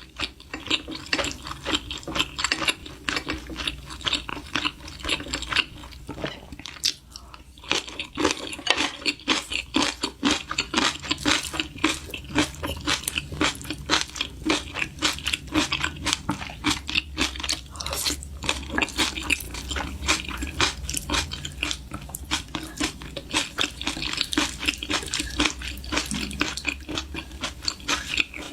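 A person chewing and biting crisp food close to the microphone: continuous rapid crunching.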